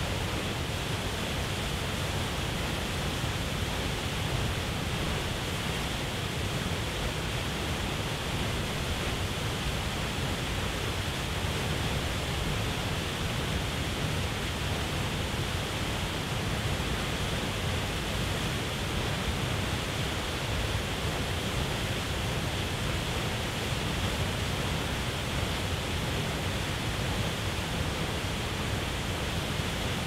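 A waterfall plunging into a churning pool: a steady, unbroken rush of falling water.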